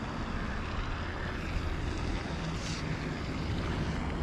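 Wind rumbling on the microphone over a faint steady low hum, with one short hiss about two-thirds of the way through.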